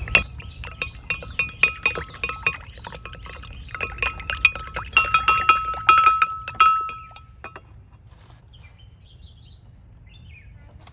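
A cinnamon stick clinking against a white ceramic gravy boat of saffron milk while stirring: quick repeated taps, each leaving a short ringing tone. The taps grow louder about five seconds in and stop about seven and a half seconds in.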